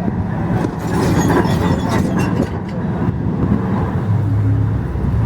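Engine of a heavy demolition machine running, with scattered knocks and clatter; a steady low engine hum comes up about four seconds in.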